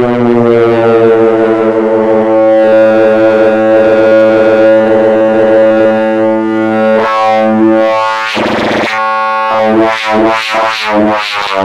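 Experimental electronic synthesizer effect: a loud, buzzy sustained drone rich in overtones that drifts down in pitch and settles. About seven seconds in a hissing filtered sweep cuts through it, and it turns into a pulsing throb of roughly two beats a second near the end.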